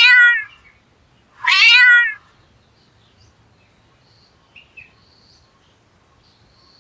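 Domestic cat meowing twice, two loud drawn-out meows about a second and a half apart.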